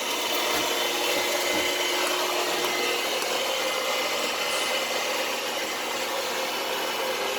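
Steady mechanical hum and rush of a running commercial hot-water boiler plant, with a few faint steady tones over it.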